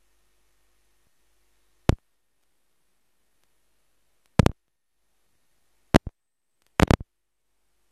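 Near-total silence broken by brief, sharp clicks: one about two seconds in, a pair around four and a half seconds, two more at six seconds, and a quick cluster of three or four near seven seconds. The sound between the clicks has dropped out entirely.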